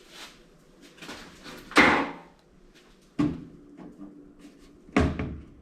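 Steel parts of a toaster oven being handled and knocked against each other: a loud clank about two seconds in, then two more knocks, one leaving a short ring, with small clicks between.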